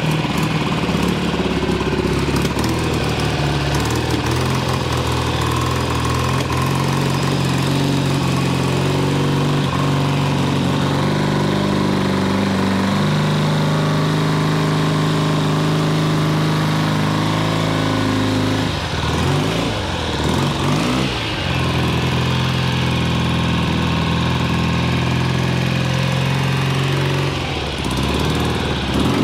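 A 1965 BSA Lightning Clubman's 650 cc parallel twin running just after a cold start. It mostly holds a steady idle, but the revs sag and pick back up twice: once about two-thirds of the way through and again near the end.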